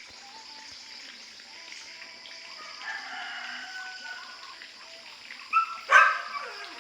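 Roosters crowing: a fainter crow about three seconds in, then a louder, closer crow near the end, over a steady high hiss.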